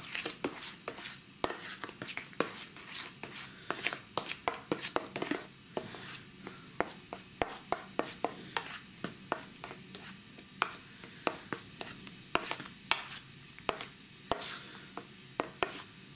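A metal utensil stirring salted fish roe in a stainless steel bowl, with rapid, irregular clicks and scrapes of metal on the bowl. The roe is being mixed with salt for a dry cure.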